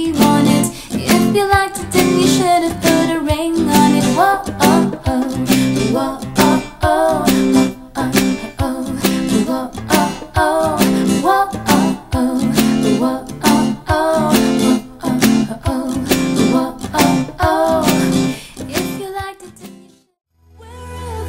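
A woman singing a slow acoustic pop cover over a strummed acoustic guitar. The music fades out about 19 to 20 seconds in, with a brief silence, and a different song starts just before the end.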